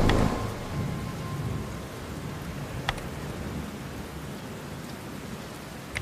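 Steady rain hiss with a low thunder rumble dying away in the first half second. A single sharp click comes about three seconds in.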